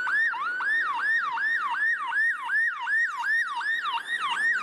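Police SUV's electronic siren on a fast yelp: a pitch that rises and falls about three times a second, without a break.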